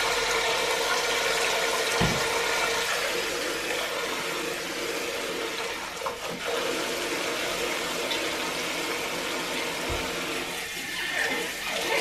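Kitchen faucet running steadily into the sink as dishes are rinsed, with a dull knock about two seconds in and another near the end.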